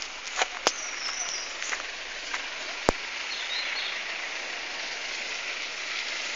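Outdoor forest ambience: a steady hiss, three sharp clicks (about half a second in, just after, and about three seconds in), and a few faint high chirps.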